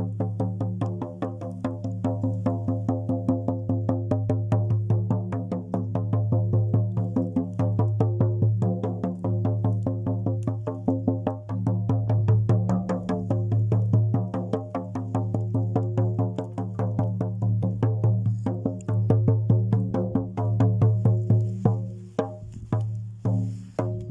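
Instrumental music: a steady low drone under fast, evenly repeated plucked or struck notes.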